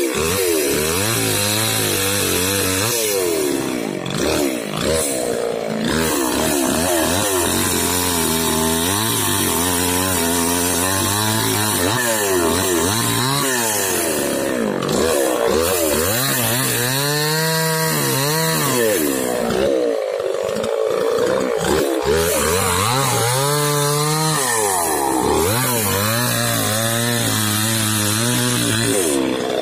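Small chainsaw cutting through a pulai log, its engine pitch repeatedly dipping and rising as the chain bites into the wood and frees again.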